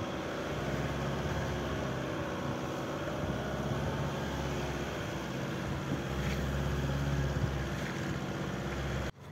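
Car engine running and tyre noise while driving on a snow-covered road, heard from inside the car as a steady low hum; it cuts off suddenly near the end.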